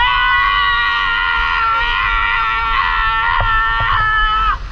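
Banana-boat riders screaming in one long, high-pitched held scream that rises at the start and breaks off a little before the end.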